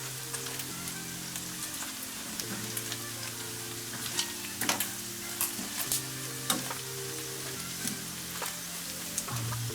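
Chicken skin frying on high heat in its own rendered fat, a steady sizzle with scattered sharp pops, as the skin crisps. Light background music with held notes plays underneath.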